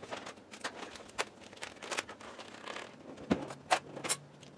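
Kitchen handling sounds: scattered light clicks and knocks with a few brief rustles, the sharpest knocks coming about three to four seconds in.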